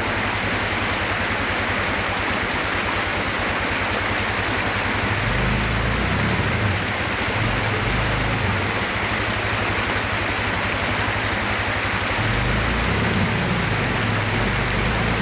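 Shallow creek water rushing over rocks, with a Suzuki ATV's engine running underneath as it picks its way up the rocky streambed. The engine revs up about five seconds in and again near the end.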